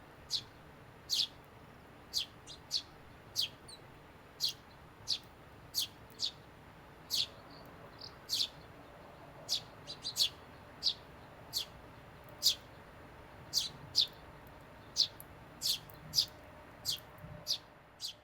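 Eurasian tree sparrows chirping: short, sharp chirps repeated irregularly, about one or two a second.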